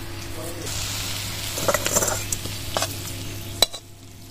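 Hot vegetable curry sizzling in a kadai while a metal spatula scrapes it out, with a few scraping clicks. A sharp knock comes near the end, and after it the sound goes quieter.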